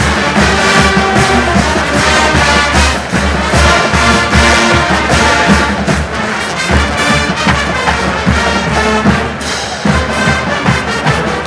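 Marching band playing: massed brass over a steady drum beat.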